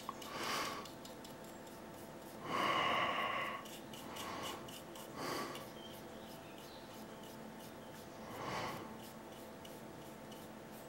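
A person breathing, five breaths spread a second or more apart, the longest and loudest about two and a half seconds in.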